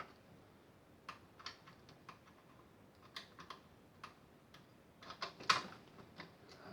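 Irregular small clicks and taps of screws and a screwdriver being handled against a boombox's plastic cabinet during reassembly, with a louder cluster of clatter about five and a half seconds in.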